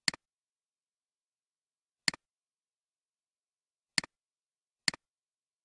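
Four computer mouse clicks, each a quick press and release, the first three about two seconds apart and the last less than a second after the third.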